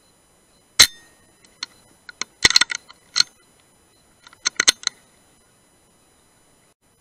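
Brocock Sniper HR .177 pre-charged pneumatic air rifle firing one shot about a second in: a sharp crack with a short ring. It is followed by several quick clusters of sharp metallic clicks and clinks.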